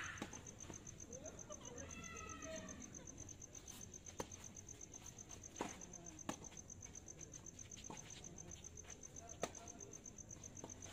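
Tennis rally: racket strikes and ball bounces as sharp pops every second or so, over a steady high chirping of crickets. A brief voice calls out about two seconds in.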